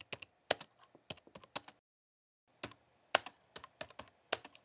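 Keyboard typing sound effect: single keystroke clicks in quick, irregular runs, with a pause of almost a second near the middle.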